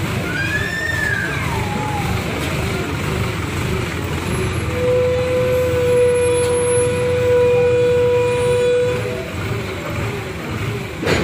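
Pick-and-carry hydra crane's diesel engine running steadily as it holds and sets a heavy load. A short whistle-like tone rises and falls about a second in, a steady high whine holds for about four seconds in the middle, and a sharp knock comes near the end.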